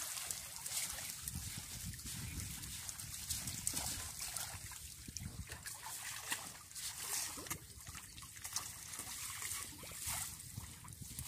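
Water trickling and splashing as a bamboo-framed lift net is hauled up by hand, water draining and dripping through the mesh in many small splashes.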